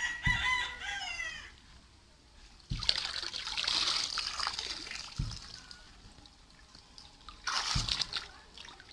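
A rooster crows briefly at the start. Then water splashes and sloshes in two bouts, one from about three to five seconds in and a shorter one near the end, each opening with a low thump.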